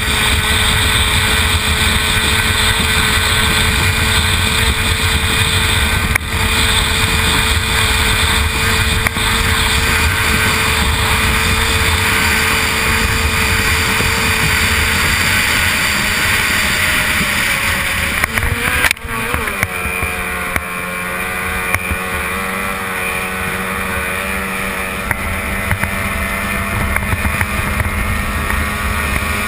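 Stock outboard racing engine on a hydroplane running hard at speed. About two-thirds of the way through the note drops suddenly and settles at a lower, steadier and slightly quieter pitch.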